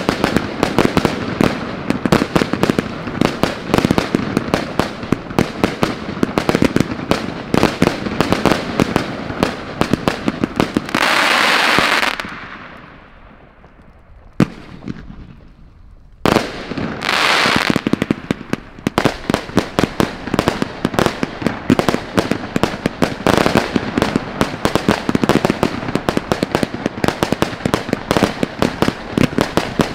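Consumer fireworks going off in quick succession: a dense run of launch thumps, bursts and crackle. Around the middle the firing breaks with a rushing hiss about a second long and a lull of a few seconds. A sharp bang and a second, similar hiss follow, then the rapid shots resume.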